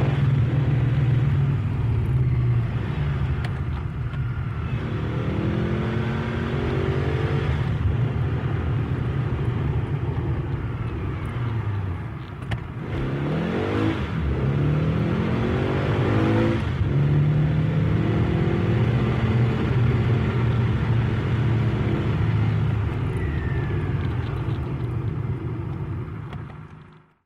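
Car engine under way, revving up and dropping back several times as it accelerates through the gears, then fading out at the very end.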